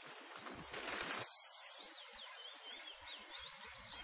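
Outdoor natural ambience: a steady high-pitched insect drone. There is a brief rush of noise about a second in, then a run of short rising-and-falling chirping calls.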